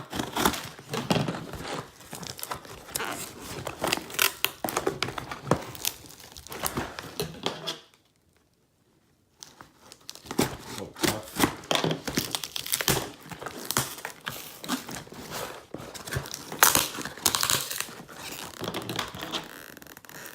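A shipping package being torn open by hand, its wrapping crinkling and tearing in dense crackly bursts, with a sudden silent break about eight seconds in.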